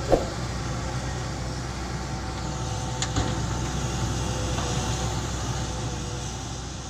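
Heavy diesel engine of an excavator running steadily while it loads a dump truck. One sharp, loud bang with a short ring comes just after the start, and a fainter click about three seconds in.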